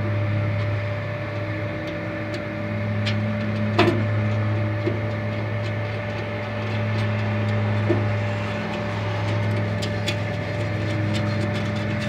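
A steady low machine hum, with a few light clicks and taps as the plastic latch parts and nylon washer are handled and fitted on a compartment door.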